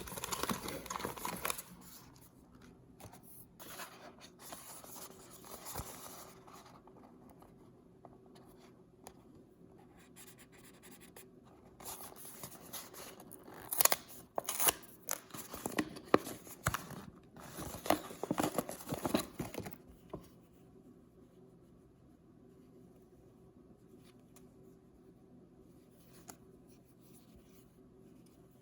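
Paper blind-bag packaging being handled and opened by hand, rustling and crinkling in bursts. A louder run of sharp crackles comes from about twelve to twenty seconds in, after which only faint room tone is left.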